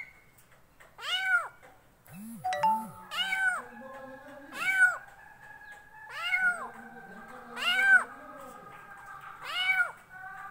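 Kitten meowing over and over: six high calls that each rise and fall in pitch, about one every second and a half.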